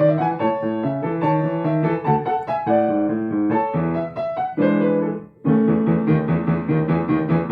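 Solo piano playing a quick, busy passage of many rapid notes, with a short break about five seconds in before the playing picks up again.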